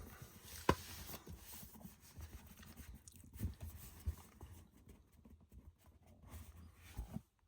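Faint handling noise of a cardboard collector's box set: soft rubbing and rustling with a few light knocks and clicks as it is moved about.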